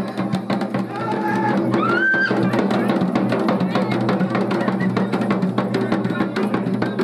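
Music with fast, dense drumming over a steady low drone.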